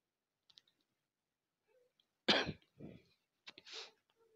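A person coughing: one sharp cough about two seconds in, a weaker second cough just after, then a short breath.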